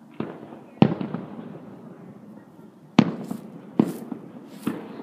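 Distant aerial firework shells bursting in a finale: about five sharp booms, each trailing off in a rumbling echo, with fainter hissing between the later ones.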